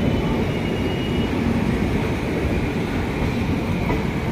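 A passenger train pulling out and rolling along the track: a steady, dense rumble of wheels on rails, with no distinct wheel clicks.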